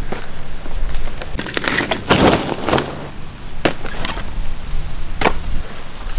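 A series of sharp cracks and snaps with a longer crunching stretch about two seconds in, like something hard being broken or chopped.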